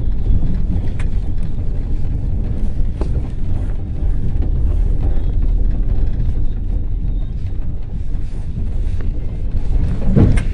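Ford Transit minibus riding along, heard from inside the cabin: a steady low rumble of engine and road, with small rattles and clicks and a louder thump near the end.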